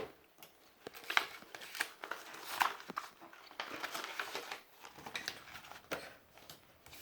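Handled paper rustling and crinkling, with several scattered light taps and clicks.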